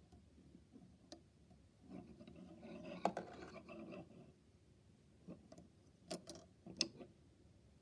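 Plastic Lego pieces being handled and pressed together: a stretch of rustling and rubbing with a sharp click about three seconds in, then a few separate clicks near the end.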